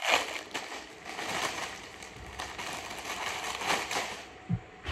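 Clear plastic packaging bag crinkling and rustling as it is handled, loudest at the start, with a soft thump near the end.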